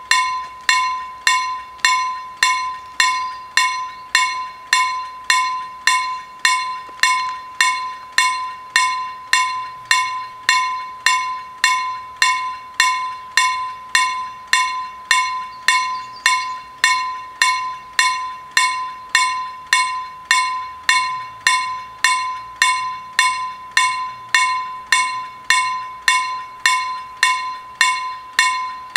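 Railroad level crossing warning bell striking steadily, a little under two strikes a second, each strike ringing with a clear tone and fading before the next: the crossing is active, warning of an approaching train.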